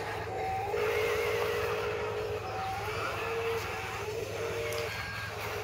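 Electric drive motor and gears of a Huina 583 radio-controlled wheel loader whining in short spurts as it drives over gravel.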